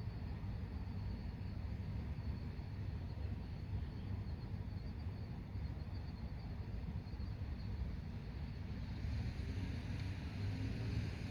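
Steady low rumble of car traffic at night, with the tyre hiss of a car growing louder from about nine seconds in as it approaches. A faint, high, steady chirping of night insects sits above it.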